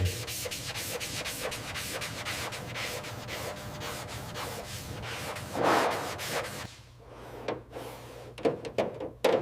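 Car body panel being sanded by hand in quick, even back-and-forth strokes, the sound of body prep before primer. The strokes stop about two-thirds of the way in, leaving quieter scraping and a few light taps.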